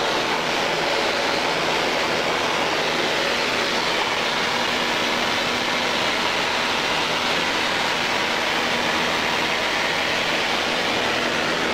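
Steady drone of a small propeller aircraft in flight, heard from inside the cabin: an even rush of engine, propeller and airflow noise with a low constant hum underneath.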